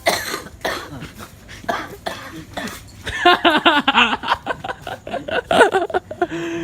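A man fake-coughing, putting it on to sound like a coughing duck. A few sharp coughs come first, then about a second in from the halfway point a run of loud, strained, voiced coughing noises.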